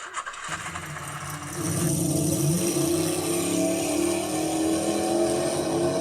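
Motor vehicle engine running with road noise, getting louder about a second and a half in as it picks up, then holding steady.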